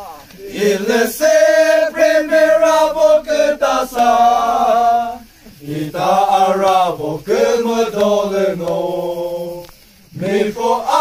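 A group of young men singing together in long held phrases, pausing briefly twice, about five and ten seconds in.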